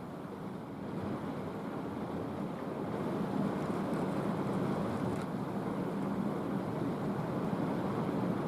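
Thunder rumbling on and on in a long steady roll, building over the first three seconds and then holding.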